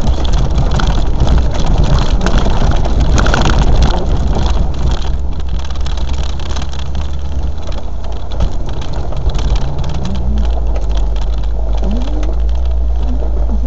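Land Rover four-wheel drive on the move, its engine a steady low drone under a continual clatter of knocks and rattles; the engine note changes about ten seconds in.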